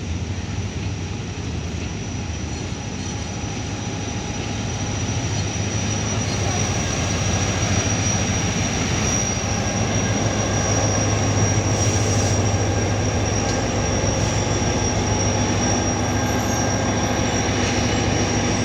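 Pakistan Railways diesel-electric locomotive hauling a passenger train slowly past at close range: a steady low engine drone over rolling noise, with a thin high whine. It grows louder over the first several seconds as the locomotive draws alongside, then holds.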